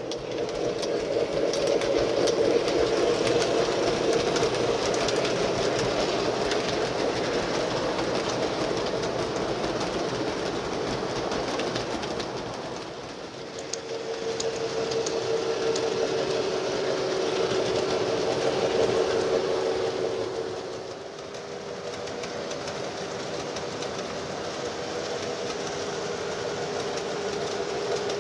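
O scale model freight trains rolling along the layout's track: the wheels click over the rail joints over a steady motor hum.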